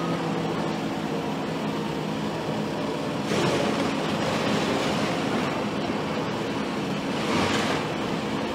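Diesel engine of heavy demolition machinery running steadily, with two swells of louder noise, about three seconds in and again about seven seconds in.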